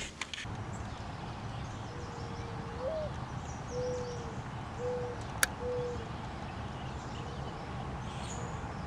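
Mourning dove cooing: a long low coo that lifts near its end, then three steady coos about a second apart, over a steady low background hum. A single sharp click about five and a half seconds in.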